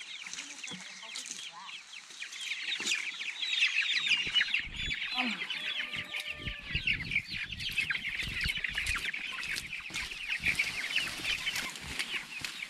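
Hundreds of baby chicks peeping continuously in a dense chorus of short high chirps from stacked plastic transport crates, with some dull bumps and rustling around the middle.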